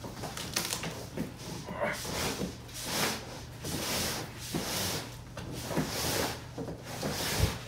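A heavy ported subwoofer in its packing being pushed and slid out of a large cardboard carton: a run of scraping, rubbing shoves of packing against cardboard.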